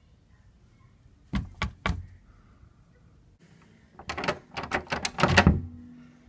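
Knuckles knocking on a wooden door: three quick knocks about a second in, then a louder, longer run of about ten rapid knocks a few seconds later.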